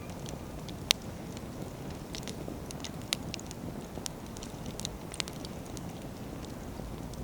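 Wood campfire crackling, with irregular sharp pops from the burning firewood, the loudest about a second in, over a steady low rumble.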